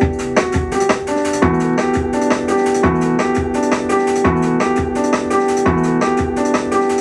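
Software instruments in Ableton Live played from a Novation Launchkey 25 MIDI keyboard: held electric-piano chords over a steady drum beat with quick hi-hat ticks. The drums cut off right at the end, leaving the piano chords ringing.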